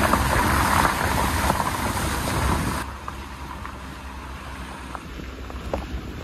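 Car driving along a wet road, its engine rumbling under the rush of tyres on the wet surface. About three seconds in it cuts off abruptly to a quieter, steady outdoor hiss.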